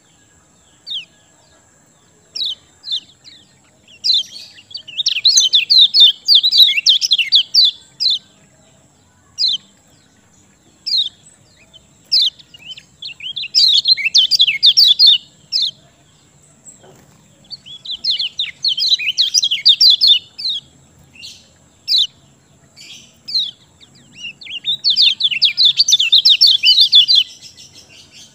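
Kecial kuning songbird singing: scattered sharp single chirps, broken by four bursts of rapid, high chattering song, each two to three seconds long.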